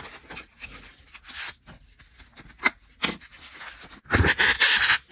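Clear plastic dessert containers and their packaging being handled: soft rubbing and rustling, two sharp plastic clicks a little past halfway, and a louder crinkling rustle about four seconds in.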